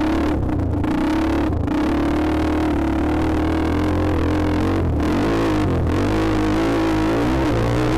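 Dirt bike engine running under throttle with small rises and falls in pitch.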